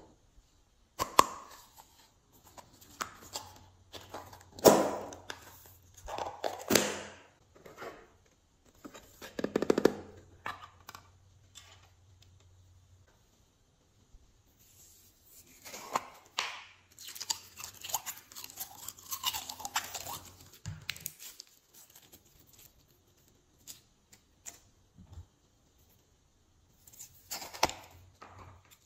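Irregular crackling, clicking and rustling as small slime add-ins such as foam beads and plastic rings are handled and tipped onto glossy slime in glass trays. The sound comes in bursts with quiet pauses in between.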